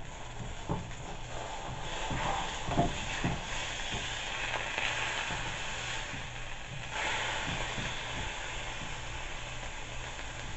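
Frozen sliced steak sizzling in a hot frying pan, with a few knocks of a spatula against the pan in the first few seconds. The sizzle grows louder about two seconds in and again about seven seconds in as the meat is worked and turned.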